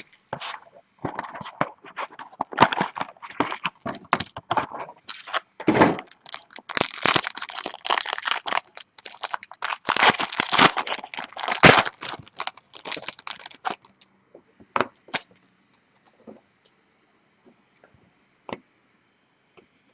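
Trading-card box and wrappers being torn open and handled: dense crinkling, crackling and tearing of wrapper and cardboard, thinning to a few scattered clicks near the end.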